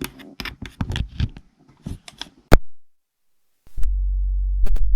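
Handling clicks and knocks of a microphone plug being worked into the camera's mic jack, ending in one loud click about two and a half seconds in. The audio then drops out to dead silence for about a second and comes back as a steady low electrical hum from the newly switched-in microphone input, with a few more clicks near the end.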